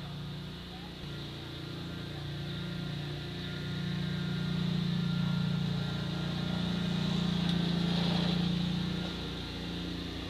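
A low engine hum drones steadily, swelling louder from about four seconds in and easing off again near the end.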